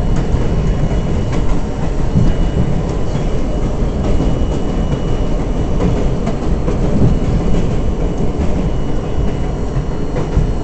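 R42 subway car running along the track: a steady rumble of wheels and running gear, with scattered clicks over rail joints and a faint high whine that comes and goes.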